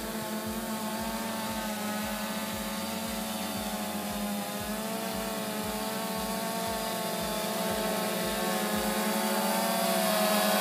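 DJI Phantom Vision 2 quadcopter hovering close by, its four propellers making a steady buzzing hum whose pitch wavers slightly as it holds position. The hum grows louder near the end as the drone comes closer.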